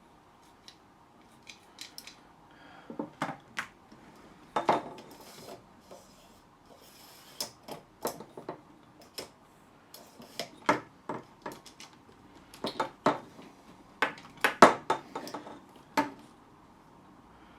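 Irregular clicks, taps and clinks of the parts of a telescopic suitcase handle being handled and worked as it is taken apart, with a cluster of sharper knocks in the second half.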